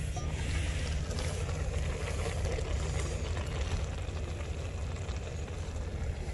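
Steady rumbling noise from a gas camp stove burning under a pot of boiling ramen, with wind buffeting the microphone.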